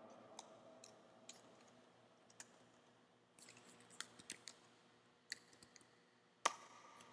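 Faint, scattered clicks of computer keyboard keys and a mouse, with a small cluster of keystrokes about four seconds in and a louder single click near the end.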